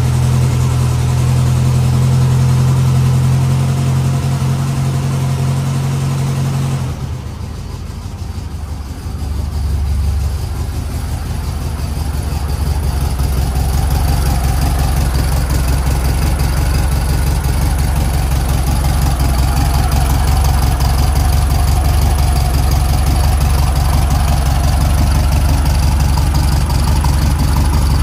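1976 Volkswagen Type 1 Beetle's air-cooled flat-four engine idling steadily. For the first seven seconds it is heard from inside the cabin as a low, even hum. After a brief dip, it is heard close behind the car at the open engine lid and the twin exhaust tips, fuller and steady.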